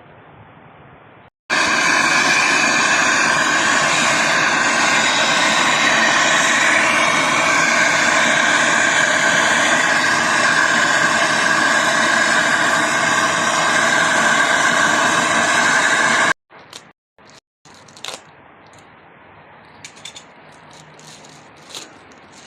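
Loud, steady machine noise that starts suddenly about a second and a half in and cuts off suddenly about fifteen seconds later. A few faint clicks follow.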